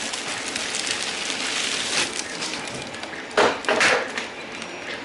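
Packaging being handled while a boxed resin printer is unpacked: steady rustling and crinkling, with two short, louder scrapes about three and a half seconds in.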